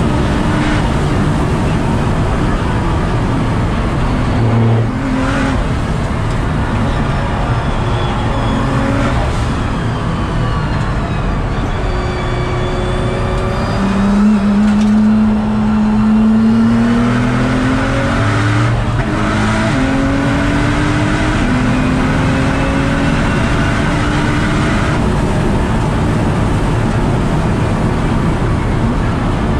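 Nissan GT-R R35's twin-turbo V6 pulling hard at speed, heard from inside the car: its note climbs under acceleration and drops back at gear changes, over a steady rush of road and wind noise.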